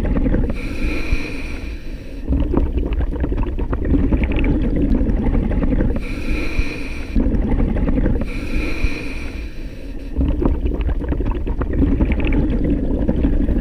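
Scuba diver breathing through a regulator underwater: a hissing inhale alternates every few seconds with a crackling, bubbling exhale.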